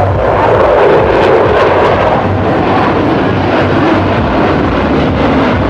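Jet engines of a formation of aerobatic jets flying past overhead: a loud, steady rushing roar whose pitch slowly falls.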